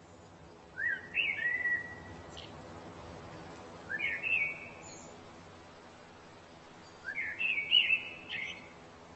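A songbird singing short warbling phrases, three in all, about three seconds apart, each opening with a quick upward note.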